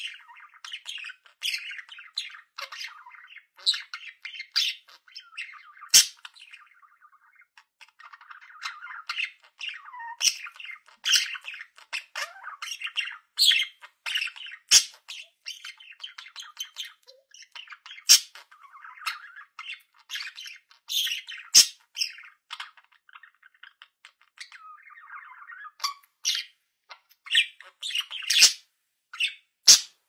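Budgerigars chattering: a rambling warble of soft chirps and squawks, punctuated by sharp, high single chirps, with a few brief lulls.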